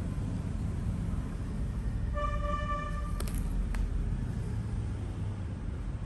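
Steady low background rumble. About two seconds in, a single horn-like tone sounds for about a second, followed shortly by two sharp clicks.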